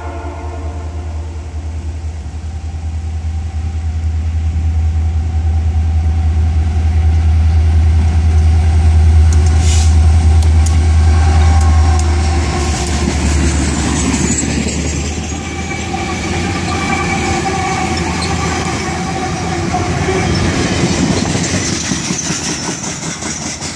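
Norfolk Southern SD60 diesel-electric locomotive passing close by, the last notes of its horn fading at the start. Its engine's low drone grows to its loudest about ten seconds in, then gives way to freight cars rolling past on steel wheels, with high squealing from wheels on rail.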